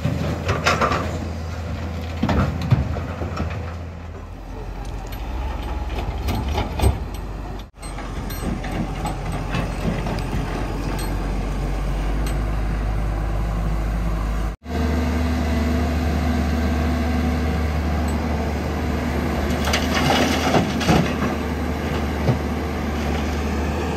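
Diesel engines of earthmoving machinery running steadily with a strong low hum, with scattered knocks and scrapes of soil being dug and loaded. The sound drops out abruptly twice, at edit cuts, about 8 and 15 seconds in, and the engine hum changes pitch after each.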